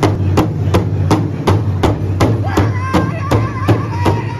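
Powwow drum group striking a large rawhide drum together with padded beaters in a steady beat, about three strikes a second. A high voice starts singing about halfway through.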